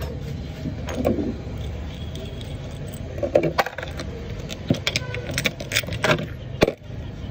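Metal clutch parts of a Piaggio Ape clicking and clinking as the gears and clutch basket are handled and fitted, in a scattered series of light knocks, most of them in the second half, over a steady low rumble.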